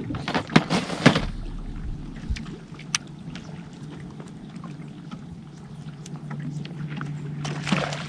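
Lake water lapping and slapping against a bass boat's hull, with a few sharp knocks in the first second and again about three seconds in, over a steady low hum.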